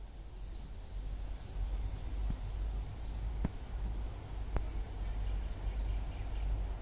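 A steady low rumble that slowly grows louder, with a few short, high bird chirps and two light clicks near the middle.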